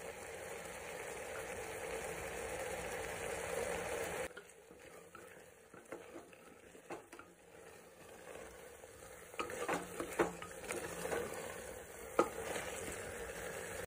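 Beef with onion and tomato sizzling in a pressure cooker pot while a wooden spatula stirs in ground pepper and turmeric; the meat is cooking in the juices it has started to release. The sizzle is steady, then drops abruptly about four seconds in, leaving softer stirring with a few spatula knocks and scrapes against the pot near the end.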